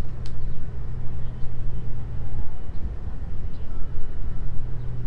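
Steady low engine hum and rumble of a vehicle. The hum drops away about halfway through and comes back near the end.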